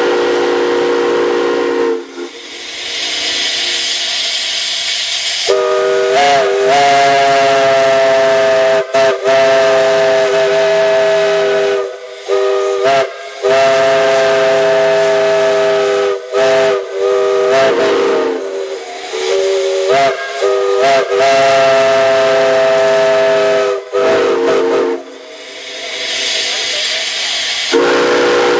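Multi-chime steam whistles blown in a series of long blasts, each a chord of several tones that sags and bends in pitch as the valve opens and closes, with steam hissing in the gaps. A lower-pitched chord sounds first; after a burst of hiss a higher chord takes over, and the lower one returns near the end.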